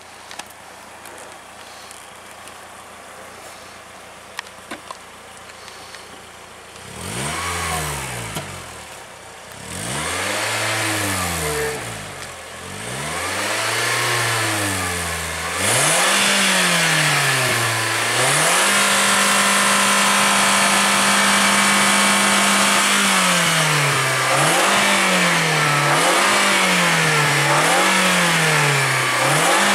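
Volkswagen Polo's petrol engine revved by foot on the accelerator pedal. After a few faint knocks, about seven seconds in it climbs and falls through four long revs. It is then held high and steady for several seconds, blipped up and down about once a second, and held high again near the end.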